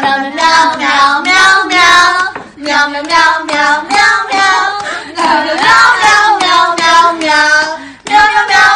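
A high voice singing a tune without accompaniment, in short phrases with brief breaths between them.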